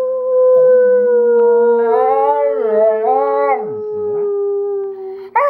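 Pit bulls howling together. One long howl slowly falls in pitch, while a second, lower howl wavers beneath it from about half a second in. A new, higher howl starts near the end.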